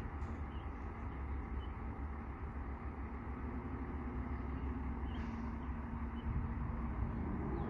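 Low, steady rumble of an approaching train, slowly growing louder, with a faint steady hum.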